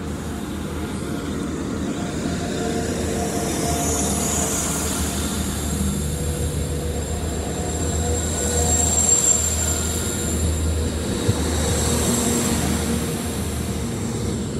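Transport for Wales Class 175 diesel multiple unit pulling out along the platform: a steady low drone from its diesel engines under the rumble of wheels on the rails, getting louder over the first few seconds as the carriages pass close by.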